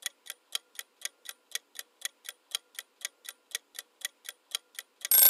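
Countdown timer sound effect: a clock ticking evenly, about four ticks a second, then a loud ringing bell breaks in near the end as time runs out.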